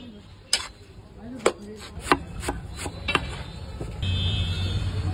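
A metal spatula chopping food against a large flat metal griddle pan: about six sharp, irregular clacks. About four seconds in, a steady low hum comes in.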